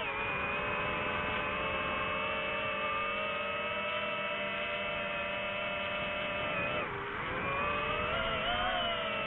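Multirotor drone's motors and propellers whining steadily with several pitched tones together. The pitch dips sharply about seven seconds in and climbs back as the throttle changes.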